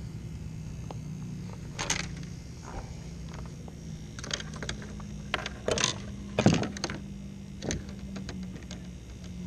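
Scattered light clicks and knocks of a baitcasting reel and rod being handled in a plastic kayak, the loudest about two thirds of the way through, over a steady low hum.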